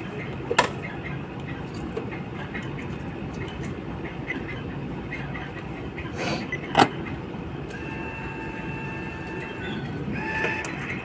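Steady rumbling background of a rail station, with two sharp clicks a few seconds apart as a finger taps a ticket machine's touchscreen. A steady high tone sounds for a couple of seconds near the end.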